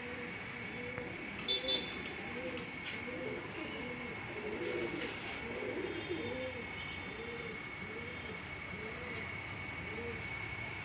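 Pigeons cooing: a steady run of low, rising-and-falling coos, about two a second, several birds overlapping.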